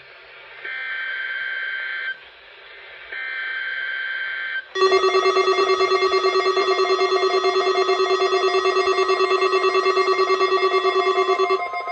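Emergency Alert System SAME header: two digital data bursts, each about a second and a half long with a short gap between them, sent to trigger receivers for a Required Weekly Test. About five seconds in, a loud pulsing alert tone starts and beats rapidly.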